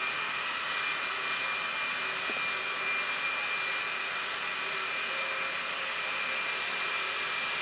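Steady background hiss with a faint, constant high whine running through it, with no distinct event.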